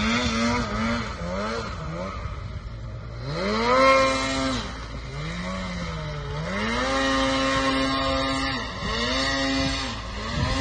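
Snowmobile engine revved hard again and again, each burst held for a second or two before dropping back, as the sled is throttled to rock it free from where it is stuck in deep snow.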